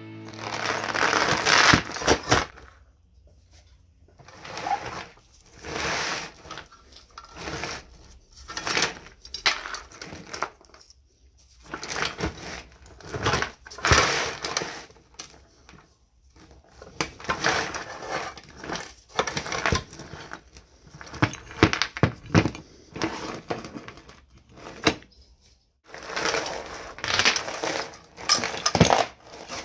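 Rusty load chain of an old chain hoist rattling and clinking as it is handled and dragged across the floor, in irregular bursts a second or two long with quiet gaps between, mixed with knocks from the metal hoist body being moved.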